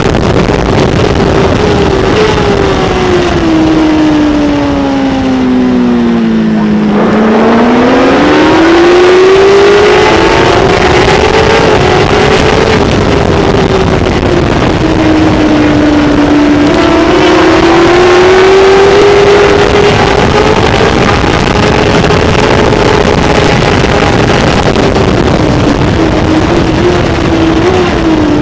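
Kawasaki ZX-10R superbike's inline-four engine at racing speed, heard from an onboard camera with wind rush. Its pitch falls for the first several seconds as the bike slows, climbs hard again about seven seconds in, dips briefly around the middle, rises again and falls once more near the end.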